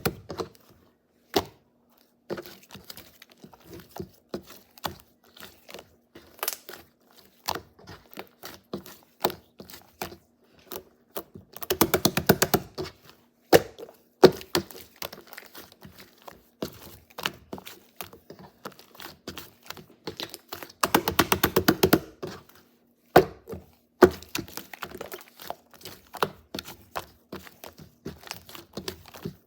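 Hands squeezing, poking and folding slime, giving a string of sharp clicks and pops. Twice, about twelve seconds in and again about twenty-one seconds in, it breaks into a dense run of rapid crackling pops.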